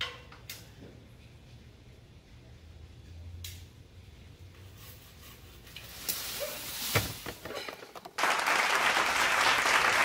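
Palm fronds rustling, a few faint clicks and a knock, then a sudden loud rush of thrashing leaves about eight seconds in that keeps up to the end.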